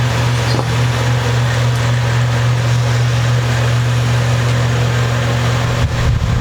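Steady low hum with a constant hiss over it. Shortly before the end the hum turns rough and uneven.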